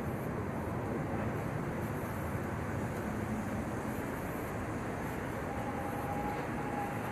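Steady city street noise: a low, even rumble of traffic. A faint steady high tone joins near the end.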